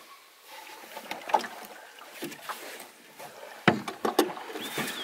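Knocks and bumps on a small boat's hull as people climb in and push off. A few sharp knocks are spread through, the loudest two near the end.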